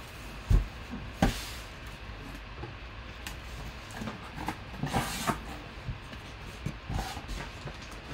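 A corrugated cardboard box being handled: two thumps near the start, then scraping and rustling of the cardboard as its flaps are worked open.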